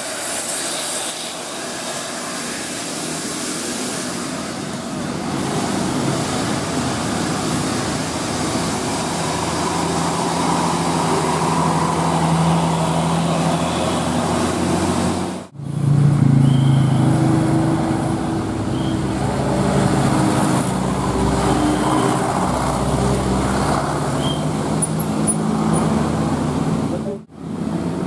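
Diesel engines of big tour coaches running through a bend as they pass one after another, over general road noise. The sound drops out briefly twice, and after the first break a deeper, louder engine drone comes in.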